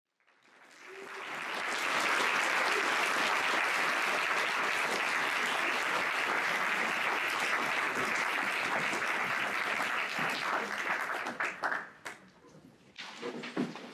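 Audience applauding: a steady wash of clapping that builds over the first couple of seconds, holds, then dies away near the end.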